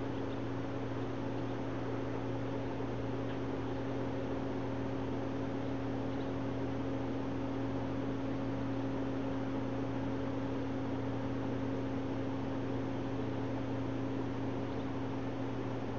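Steady low hum with a few fixed tones over even hiss, unchanging throughout.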